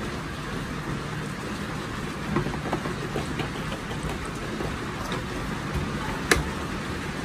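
Handling of a plastic toy oven in its cardboard insert: light taps and rubbing, with one sharp click about six seconds in, over a steady background hum.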